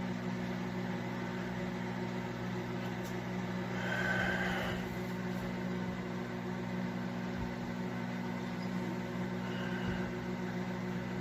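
Microwave oven running with a steady electrical hum, and a few faint low thumps at uneven intervals.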